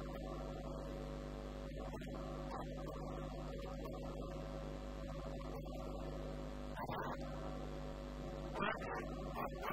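Steady electrical mains hum with background hiss on an old recording, broken by a brief noise about seven seconds in and two more near the end.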